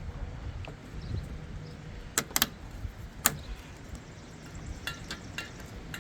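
Sharp metallic clicks and clinks of hand tools and parts being worked on a lawnmower: two loud clicks a little past two seconds in, another about a second later, then a quick run of lighter ticks near the end.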